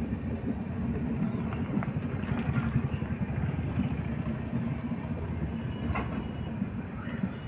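LHB passenger coaches rolling past over a bridge: a steady rumble of steel wheels on the rails, with a few faint clicks, the clearest about six seconds in.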